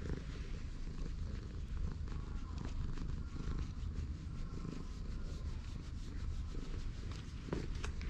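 Cat purring steadily while being stroked on the head and neck.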